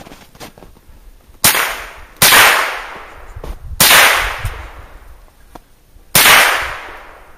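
A .22 semi-automatic rifle fired four times at uneven intervals. Each sharp crack trails off over about a second.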